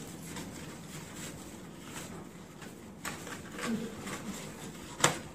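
Stiff cardstock panels of a honeycomb fold card being handled and folded, with faint paper rustles in the second half and one sharp tap near the end.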